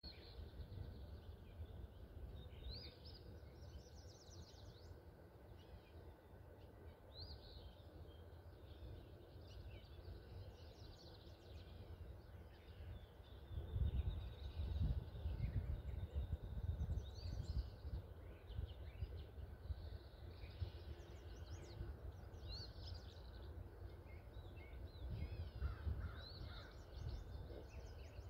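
Birds calling and chirping on and off, over a low rumble of wind on the microphone that grows gustier about halfway through.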